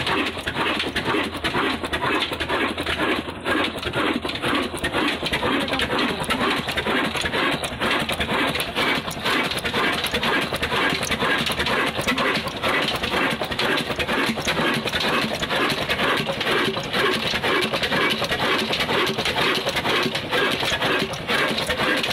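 Old Ruston Hornsby 22 HP diesel oil engine running steadily, with a rapid, even clatter of knocks from its working parts.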